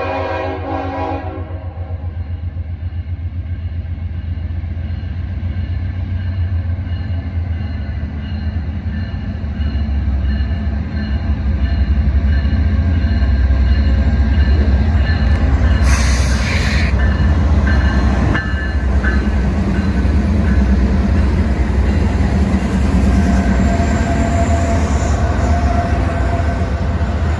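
Train passing, led by its locomotive's multi-tone air horn: a chord sounds clearly in the first second and a half, and fainter horn tones linger beneath. A deep rumble runs throughout and grows louder about twelve seconds in as the train comes close, with a short hiss about sixteen seconds in.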